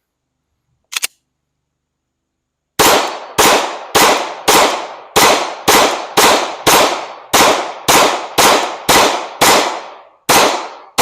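Glock 19 9mm pistol fired in a steady string of about fourteen shots, roughly two a second, each shot with a short ringing tail. A brief click comes about a second before the shooting starts.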